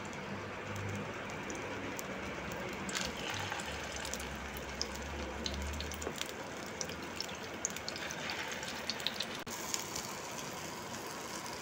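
Egg-coated chicken shami kababs shallow-frying in hot oil in a pan: a steady sizzle with scattered crackles and pops.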